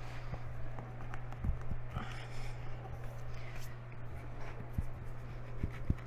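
Hands pressing and adjusting a concrete tile set in thinset on a wall: soft scraping and light knocks, with a few sharper knocks near the end, over a steady low hum.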